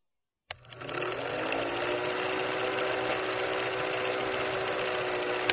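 Film projector running with a fast, steady mechanical clatter, its hum gliding up in pitch as it starts about half a second in, with a sharp click near the end.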